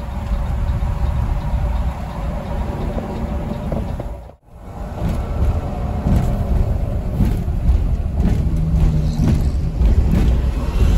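Mercedes-Benz OH 1626 coach on the move: a steady low rumble of engine and road noise. The sound drops out briefly about four seconds in.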